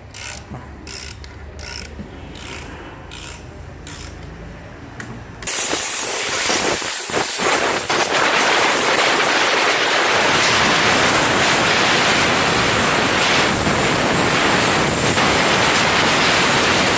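Hand ratchet clicking in quick, even strokes, about two a second, as the oil filter is fitted. About five seconds in, a loud, steady rushing hiss starts abruptly and drowns it out.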